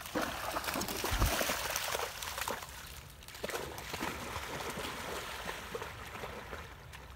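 Two dogs splashing as they run and wade through a shallow river, loudest in the first two seconds and then fainter as they move away, over the steady flow of the river. A brief low thump comes about a second in.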